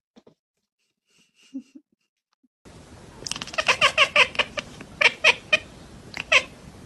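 A tabby-and-white domestic cat chattering: quick runs of short, high chirps, coming in three runs from about three seconds in.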